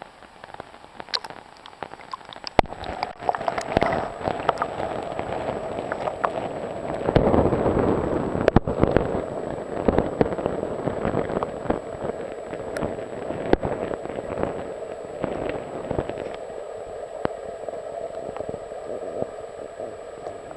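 Flowing river water heard with the microphone under the surface: a dense, muffled wash full of sharp clicks and crackles, growing louder a few seconds in.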